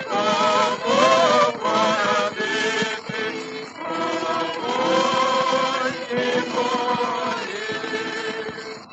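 A 1930 Columbia 78 rpm record of a male vocal quartet with orchestra singing a Ukrainian folk song. Voices with wide vibrato for the first few seconds settle into long held chords. The sound has the narrow, dull top of an old disc transfer.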